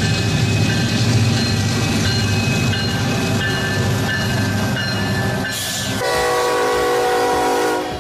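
Battery-powered toy diesel locomotive running along plastic track with a steady motor and wheel hum. After about five and a half seconds there is a short hiss, then a held electronic horn sound for nearly two seconds.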